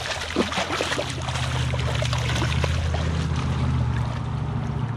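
A hooked pink salmon thrashing and splashing at the surface of shallow creek water, the sharp splashes thickest in the first second or so. A steady low rumble runs underneath.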